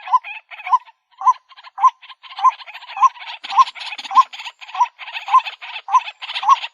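White-breasted waterhen calling: a short, hooked note repeated about twice a second over a harsh, rasping chatter.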